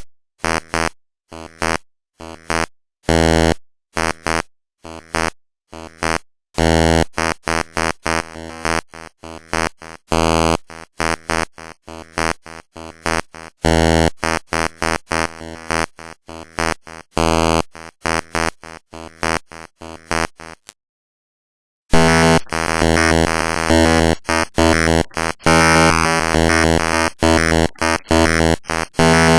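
Image data played back as raw audio (data bending): harsh buzzing tones, chopped into abrupt blocks of differing length with short gaps. About two-thirds of the way through there is a second of silence, after which the buzzing comes back denser and nearly unbroken.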